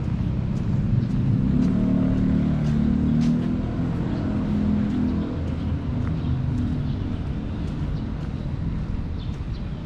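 A motor vehicle engine running steadily with a low hum that eases off a little in the second half. Faint scattered clicks sound alongside.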